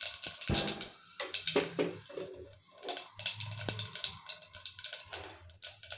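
Cumin seeds crackling in hot oil and ghee at the bottom of a small pressure cooker: irregular sharp pops and ticks, the sign that the oil is hot enough for the tempering.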